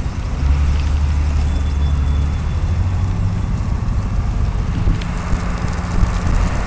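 Open-air safari tour vehicle driving along, a steady low rumble of engine and road noise.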